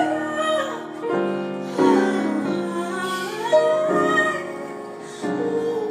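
A voice singing a slow, gliding melody over sustained piano chords that change about every second.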